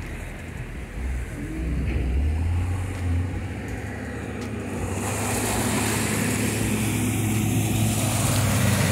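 Diesel engines of a tractor and a wheel loader running steadily, a low rumble. A rushing hiss joins about halfway through.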